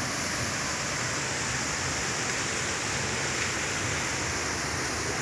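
Waterfall rushing, a steady roar of falling water.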